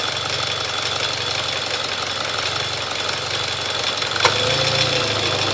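Mitsubishi Lancer Evolution X GSR's turbocharged 2.0-litre four-cylinder idling with a fast, even ticking and a thin high whine over it, noises the owner calls normal. About four seconds in there is a single sharp click, after which the engine note changes and a new steady hum joins in.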